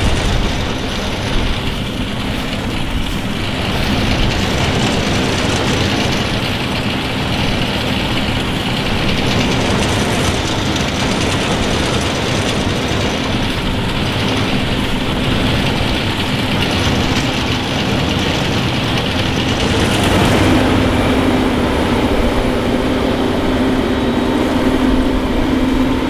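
Heavy diesel farm machinery running steadily at working load, with a steady hum that grows stronger about twenty seconds in.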